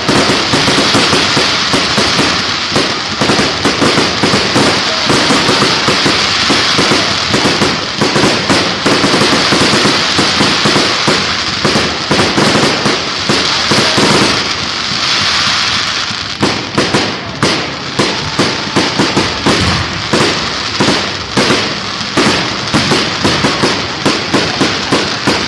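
Fireworks display going off: a dense, continuous run of rapid bangs and crackling, with a stretch of thicker high crackle about halfway through.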